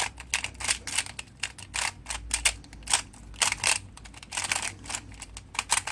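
Qiyi Square-1 puzzle being turned by hand: a rapid, irregular run of plastic clicks and clacks as its layers are twisted and snap into place.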